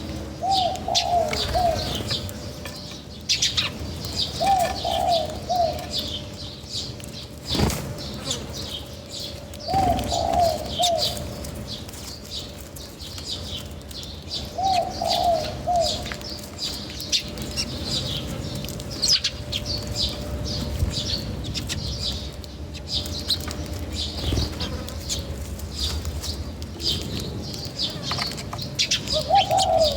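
Birds at a feeder: a steady chorus of high chirps, with a lower call of several notes repeated about every five seconds and a few sharp clicks.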